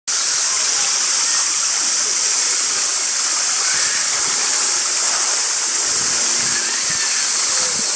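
Steady, high-pitched hiss that does not change.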